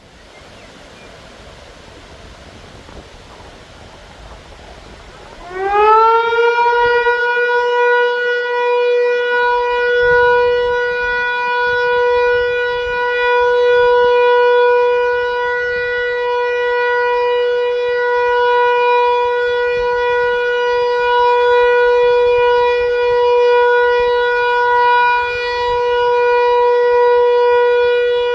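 Hörmann HLS 273 motor siren spinning up, its pitch rising and settling about five seconds in, then holding one steady tone with no rise and fall: the steady all-clear signal (Entwarnung). Wind noise is heard before it starts.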